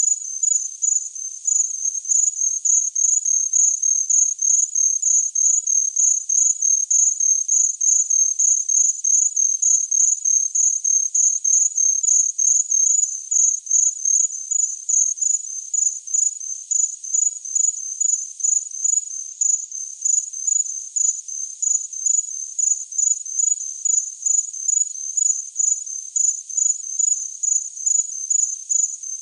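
Cricket chirping: high-pitched chirps repeating at a steady, even rhythm.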